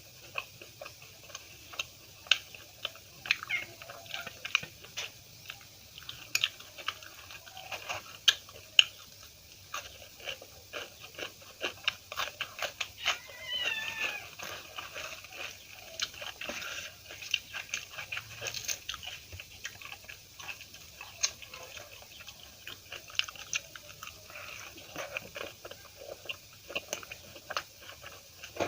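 Close-miked chewing, with wet lip smacks and crunchy bites, as a person eats a meal of puri and curries. About halfway through there is one brief, high, wavering cry.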